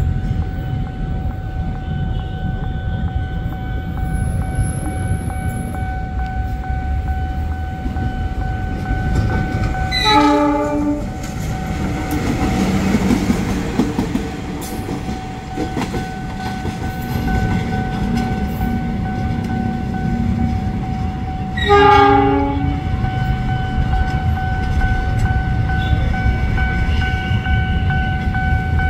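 Diesel-electric locomotive passing with a steady low engine and wheel rumble, sounding its horn twice, each blast about a second long, about a third of the way in and again about three quarters of the way in.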